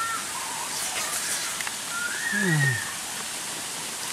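Steady background hiss of the forest with a few short bird chirps; about halfway through comes a brief low vocal sound that slides down in pitch.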